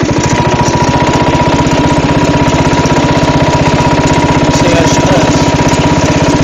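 Craftsman riding lawn mower's engine running steadily under way, a fast, even firing pulse with a thin steady high whine over it.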